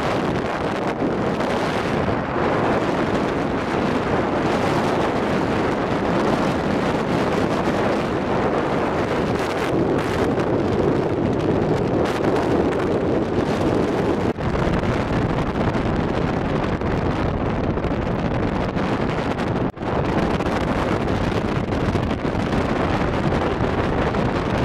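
Steady rush of wind buffeting the microphone on a moving car at road speed.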